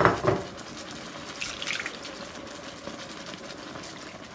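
Water and leftover almond paste poured from a container into an electric skillet of frying chicken, with two loud sloshes right at the start.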